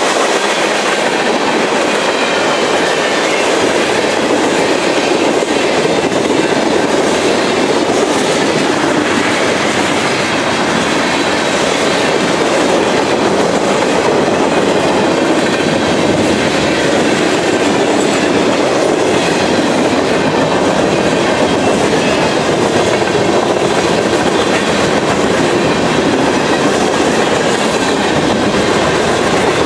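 Freight cars of a long mixed freight train rolling past, a steady rumble and clatter of steel wheels on the rails.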